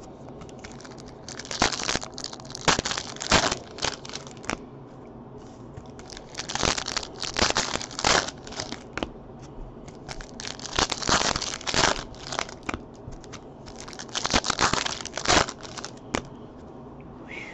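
Foil trading-card pack wrappers being torn open and crinkled by hand, in repeated bursts of tearing and crinkling, one pack after another.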